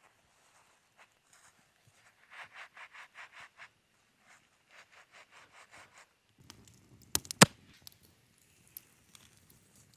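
Quick rhythmic scraping strokes, about six a second in a short run, then a softer run, followed by two sharp knocks, the loudest sounds, with a low rumble of handling.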